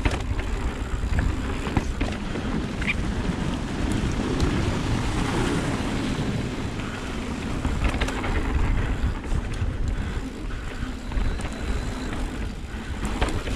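Mountain bike descending a dirt trail: tyres rolling and rumbling over the ground with wind rushing over the camera microphone, and a few sharp clicks and knocks from the bike over the bumps.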